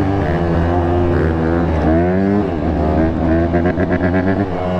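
Dirt bike engines running, their revs rising and falling several times over a steady low drone.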